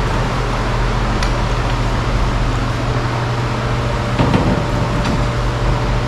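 Shop fan running with a steady hum and whoosh, with a few faint light clicks of handling on top.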